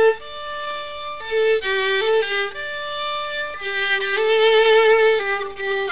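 Solo violin playing a slow melody of short and held notes as soundtrack music, with vibrato on the longer notes.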